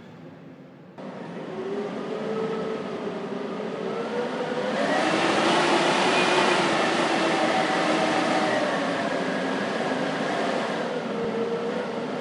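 Blizzard wind howling, with several wavering whistling tones over a rushing hiss; it steps up about a second in, swells into a strong gust about five seconds in, and eases off near the end.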